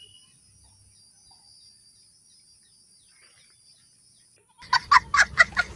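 Chicken clucking: after a long quiet stretch, a sudden burst of loud, rapid clucks, about five or six a second, starts near the end.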